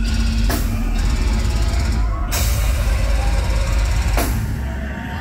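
Deathcore band playing live at full volume, dominated by fast, heavy kick drums. Cymbal crashes come in about half a second in, drop out a little after two seconds, and return around four seconds.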